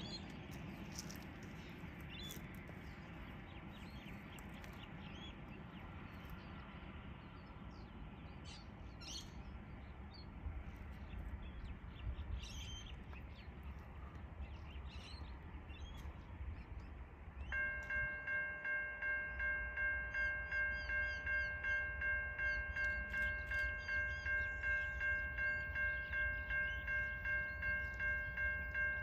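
Birds chirp over a faint outdoor rumble. About two-thirds of the way through, a level crossing's electronic warning bell starts up: a ringing made of several steady tones that pulses about twice a second, the signal that a train is approaching.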